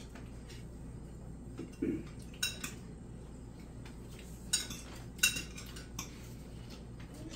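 Metal kitchenware clinking: a dull knock about two seconds in, then a handful of sharp, ringing metal clinks, the loudest about five seconds in, over a steady low hum.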